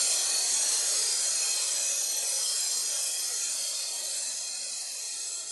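A steady, bright hiss of noise in an electronic dance track's outro, slowly fading out.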